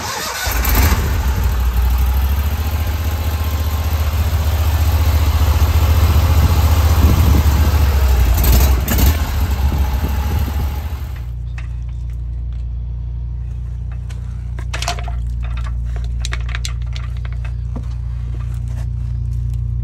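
Van-mounted high-pressure drain jetter's petrol engine running loudly. About halfway through it drops to a steadier, quieter hum, with scattered knocks and rattles in the later part.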